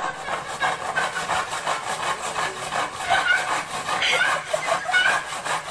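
Rapid rhythmic scraping or rasping, several strokes a second, with a few short high chirps in the second half.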